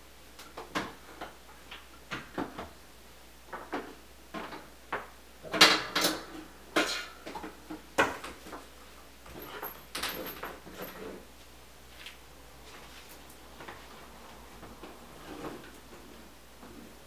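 Irregular knocks, taps and clatter of things being handled and set down, as during dishwasher installation work. It is loudest in a burst of clattering about six seconds in, with single sharp knocks near eight and ten seconds, and quieter after that.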